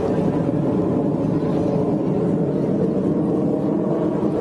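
Jet engines of the Blue Angels' F/A-18 Hornets flying in formation overhead, heard as a steady low rumble.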